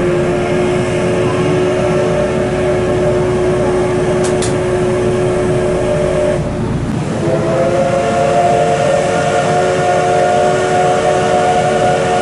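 Steam whistle of the Paleo Express's C58 steam locomotive, heard from inside a passenger coach. It sounds one long blast that ends about six and a half seconds in, then a second long blast starts about a second later and is still sounding at the end. Each blast is a chord of several steady notes over a low rumble.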